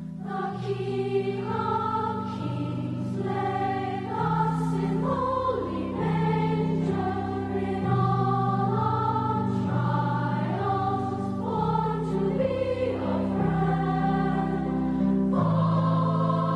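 Choir singing, with sustained chords that change every second or so.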